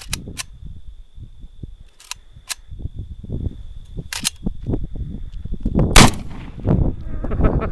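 An AK pistol fires a single shot about six seconds in, preceded by several sharp metallic clicks. The pistol is failing to cycle, which the shooter blames on the spring not driving the bolt forward.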